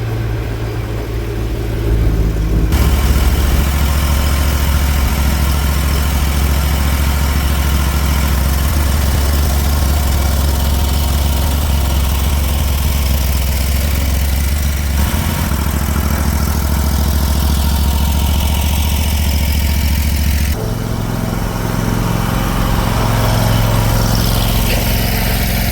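Lawn mower engine running steadily, with its pitch and level shifting abruptly a few times.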